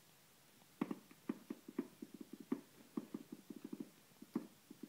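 Plastic cordless phone handset knocking and rattling on a hardwood floor as a kitten paws it around, a quick, irregular run of light knocks starting about a second in.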